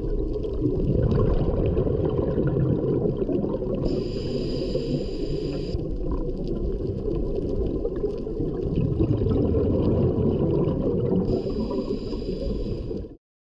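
Underwater scuba breathing heard through the camera housing: a continuous low bubbling rumble, with two hissing inhalations through the regulator about four and eleven seconds in. The sound cuts off abruptly near the end.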